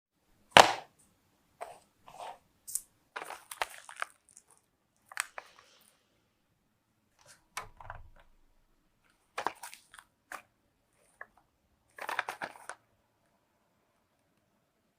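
Packaging of a small diecast model being handled and opened: a sharp click about half a second in, then scattered clicks, taps and brief crinkling rustles of plastic and card.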